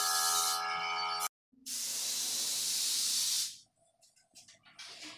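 Compressed-air spray gun hissing as paint is sprayed, over the steady hum of the air compressor running. The sound cuts out briefly about a second in, the hissing comes back for about two seconds and then stops, leaving only faint scattered sounds.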